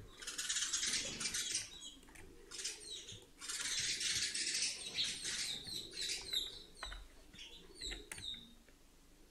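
Birds chirping in the background: many short, high chirps and bursts of twittering, with a few faint clicks among them.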